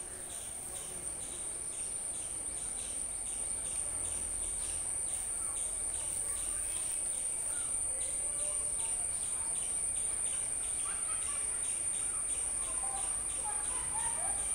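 Insects calling in a steady high-pitched drone, with a pulsing chirp a few times a second. Faint bird chirps come in near the end.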